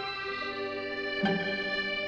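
Background instrumental music: sustained chords, with a new note struck a little over a second in.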